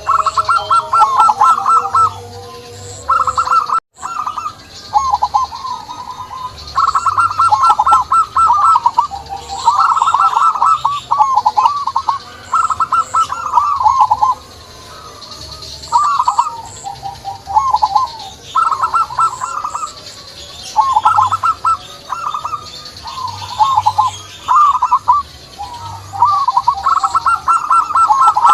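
Zebra dove (perkutut) cooing: repeated phrases of rapid staccato notes, one after another with short gaps. Faint high chirps of other small birds sound behind them.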